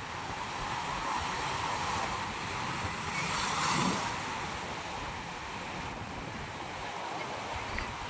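Ocean surf washing steadily on a beach, with one wave breaking loudest about three to four seconds in.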